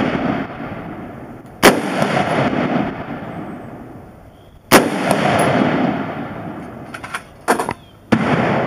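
Two shots from a DPMS Oracle AR-15 firing 5.56/.223 incendiary rounds, about three seconds apart, each followed by a long echo that dies away over about two seconds. A few smaller, sharp knocks and clicks come near the end.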